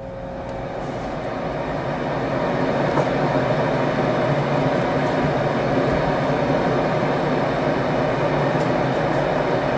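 Steady rumbling ambient noise that fades in over the first two seconds and then holds level, with a few faint clicks through it, like the inside of a moving train.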